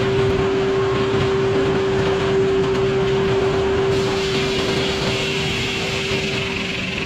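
Sawmill machinery running steadily under load, a held hum over a dense mechanical rumble.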